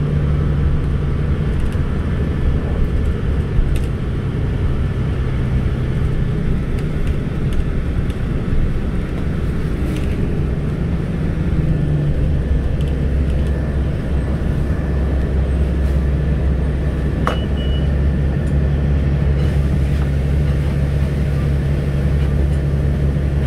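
Steady rumble of a moving TTC transit vehicle heard from inside, its motor and running gear giving a continuous low hum. A short squeak comes about two-thirds of the way through.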